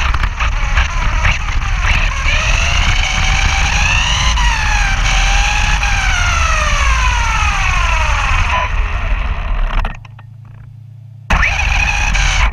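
Brushless electric motor of a 1/8-scale RC buggy whining, its pitch rising and falling as the throttle is worked, over a heavy rumble of the chassis and tyres heard from an onboard camera. The sound drops out abruptly about ten seconds in, leaving only a faint hum, and comes back a little over a second later.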